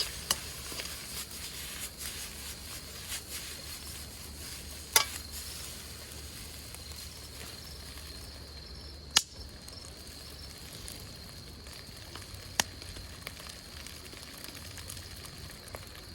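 Fried rice sizzling in a wok over a wood campfire, a steady hiss broken by a few sharp clicks.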